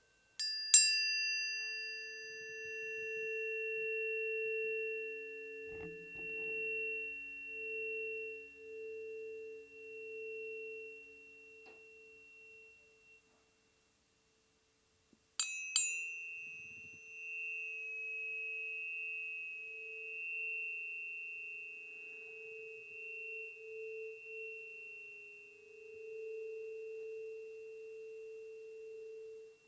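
Planetary tuning forks struck twice, about fifteen seconds apart. Each strike opens with a brief bright metallic ping, then rings on in long steady pure tones, a low one and a high one together, the low tone slowly pulsing as it fades.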